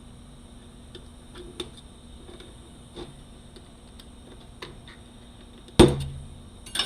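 Light scattered clicks of metal automatic-transmission parts being handled, then a loud clunk about six seconds in that rings briefly, and another clatter right at the end.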